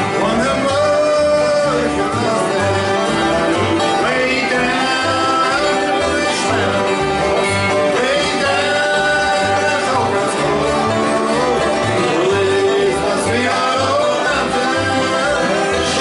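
Bluegrass band playing live: banjo and guitar with a melody line, over a bass line that steps back and forth between two low notes on the beat.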